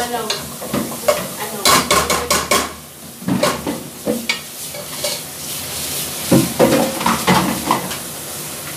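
Metal spatula stirring and scraping food frying in a pot, with a steady sizzle and repeated knocks and clinks of the utensil against the pot.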